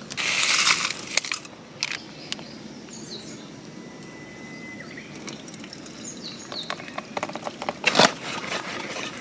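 A plastic packet crackles briefly at the start, then hot water is poured from a zip-lock bag into a metal cup of instant miso soup, and chopsticks clink against the cup near the end. Faint bird chirps sound a couple of times in the background.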